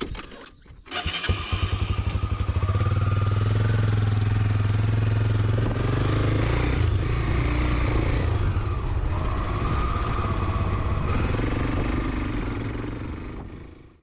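Motorcycle engine starting to run about a second in with quick, even firing pulses, then running steadily as the bike moves off along the road. The sound fades out near the end.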